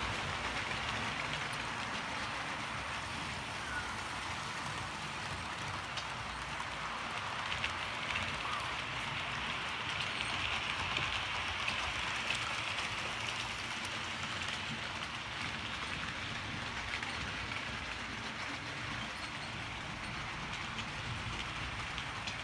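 Model railway trains running on the track: a steady whirring rumble of wheels on rails and small motors, growing a little louder around the middle as a train passes close.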